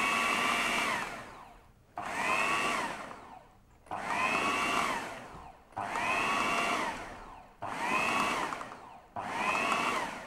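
Food processor pulsed in six short runs, about one every two seconds, its motor whine sinking as the blade spins down after each pulse. It is breaking up the last big chunks of a potato and spinach mash.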